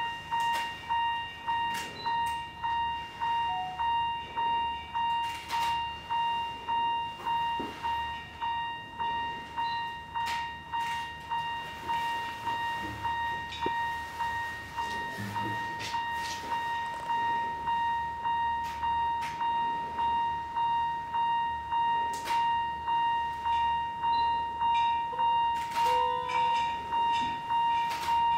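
A single steady tone, one pitch that pulses about twice a second throughout, with scattered sharp knocks.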